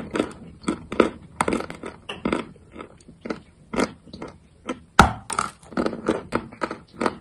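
Close-up crunching of chalk being bitten and chewed: a quick, uneven run of dry crunches, with one sharper, louder bite about five seconds in.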